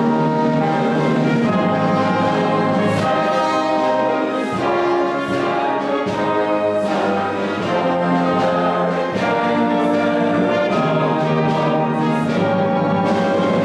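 Live orchestra playing a classical piece, with the brass section prominent and sustained notes held over a full, steady accompaniment.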